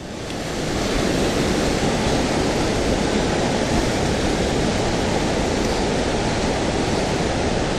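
Steady rush of moving river water, building over the first second and then holding level.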